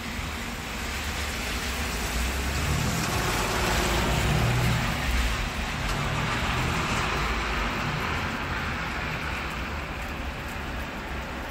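Heavy rain hissing down on the street, with a car driving past on the wet road; its rumble builds to loudest around the middle and then fades away.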